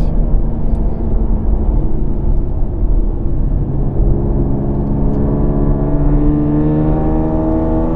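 The 2019 Kia Stinger GT's twin-turbo V6, with dual AEM intakes, heard from the cabin. It holds a steady note for about three seconds, then climbs steadily in pitch under acceleration, and the note falls sharply at the very end as the automatic gearbox upshifts.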